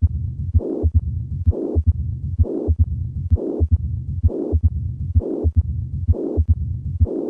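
Heartbeat recording of calcific mitral stenosis: a low diastolic rumbling murmur repeating with each beat, a little faster than one beat a second, with no opening snap and no loud first heart sound because the stiff, calcified leaflets barely move.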